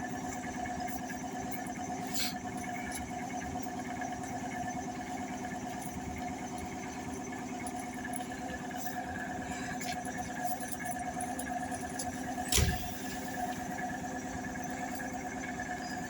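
Electric commuter train standing with its auxiliary machinery running in a steady hum of several tones. A single sharp knock sounds about twelve and a half seconds in.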